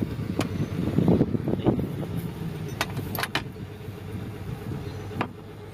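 A few sharp metallic clicks and taps of a wrench on the fuel-injection-line fittings of an Isuzu 10PE1 diesel injection pump, over a steady low mechanical hum.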